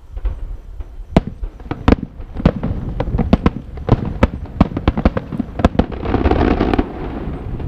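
Aerial fireworks bursting overhead in a rapid, irregular series of sharp bangs, with a dense rushing crackle near the end.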